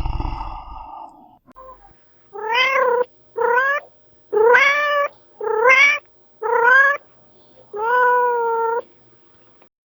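Domestic cat meowing six times in a row, each meow rising and then falling in pitch, the last one longer and steadier. A low rumble from the previous animal fades out in the first second.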